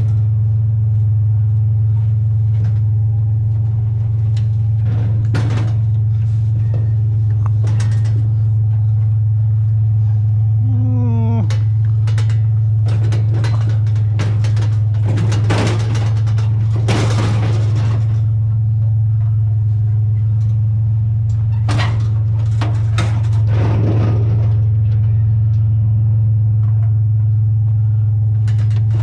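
Truck engine running with a steady low drone, with scattered clunks and rattles, a short squeak about eleven seconds in, and a few longer scraping or rustling bursts.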